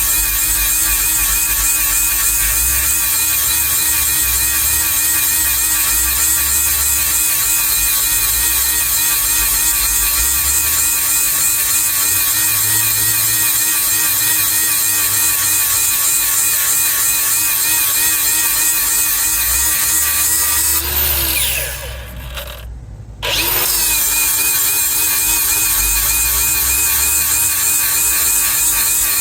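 Handheld power grinder grinding the teeth on a Bandit Beast 4680's mill to sharpen them, with a steady whine that wavers as the wheel bears on the metal. Around twenty seconds in it winds down to a brief stop, then spins back up and carries on grinding.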